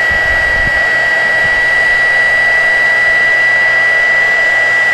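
Heat gun running on its high setting: a loud, steady blowing hiss with a constant high whine, as it shrinks heat-shrink tubing over a crimped butt connector.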